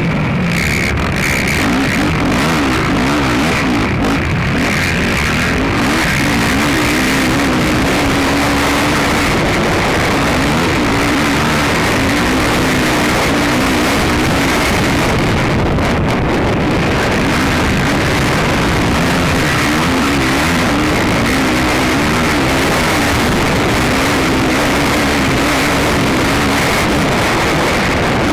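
Racing ATV (quad) engine heard on board, revving up and down continuously as the rider accelerates and backs off, under a constant loud rush of noise.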